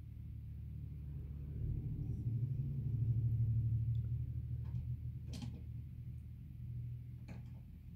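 Cat purring, a low pulsing rumble that swells about three seconds in and then fades. A few light clicks and scratches come in the second half.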